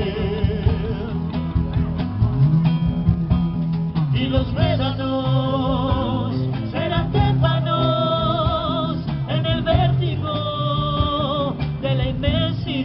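Live acoustic band playing: guitars with bass and percussion, and from about four seconds in a voice singing long held notes with vibrato.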